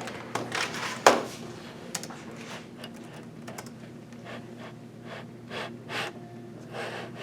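Scattered knocks and clicks of objects being handled and set down, the sharpest about a second in, over a steady low hum.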